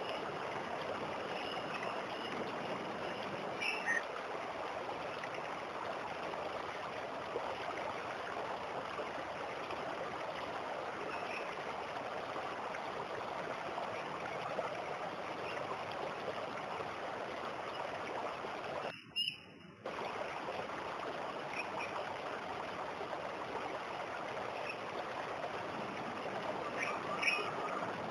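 Waterfall rushing steadily, with a few short bird chirps now and then. The sound drops out for under a second about two-thirds of the way through.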